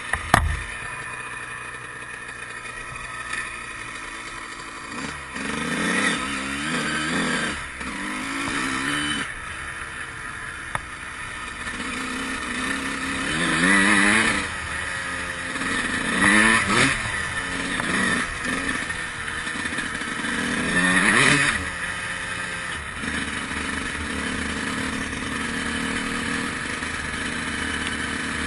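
A 2003 Honda CR125's single-cylinder two-stroke engine being ridden, its pitch rising and falling repeatedly as the throttle is worked. There are louder bursts of revs around six to nine, fourteen, seventeen and twenty-one seconds in. A sharp thump comes right at the start.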